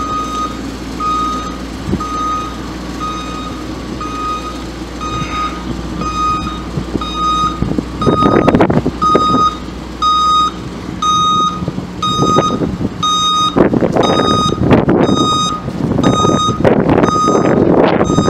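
Vehicle backup alarm beeping steadily, about two short beeps a second, over a truck engine running low underneath. In the second half, louder bursts of rushing noise come and go.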